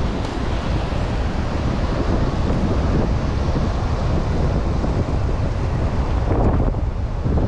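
Steady wind buffeting the microphone, with surf washing on the beach behind it.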